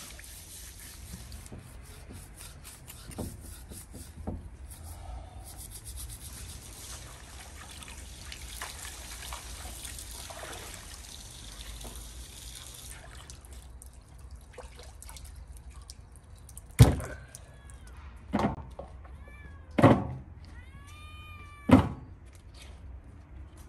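Water sloshing and dribbling in a metal basin as hands work a scalded bull's head, then, in the last seconds, four loud, short animal cries one to two seconds apart.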